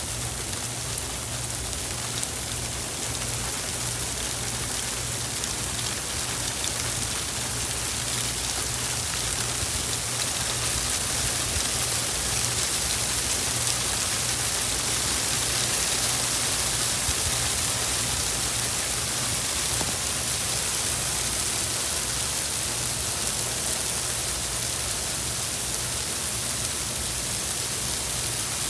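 Blizzard: a steady, unbroken hiss of wind-driven snow and ice, brightest in the highs, with a low hum underneath.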